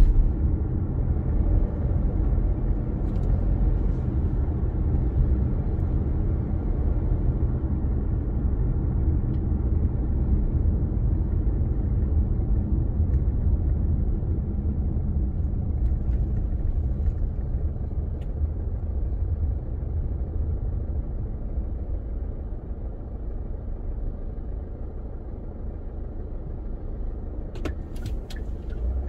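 A car driving on city roads: a steady low rumble of engine and road noise that eases slightly toward the end, with a few sharp clicks near the end.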